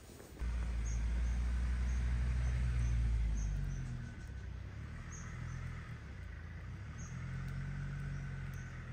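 A low rumble that starts suddenly and is loudest for the first few seconds, then eases and swells again near the end, with faint short high chirps recurring over it.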